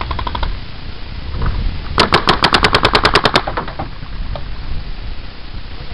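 Paintball marker firing a rapid string of about fifteen shots in a second and a half, roughly ten a second, about two seconds in; a fainter string of quick marker shots sounds at the very start.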